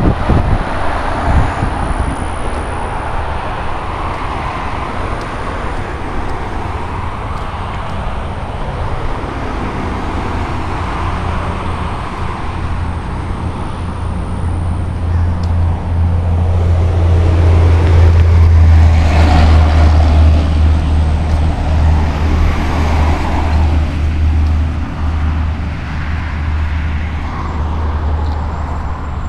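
Road traffic going by on a multi-lane street, with a steady low rumble. It swells to its loudest about two-thirds of the way through as a vehicle passes close, then eases off.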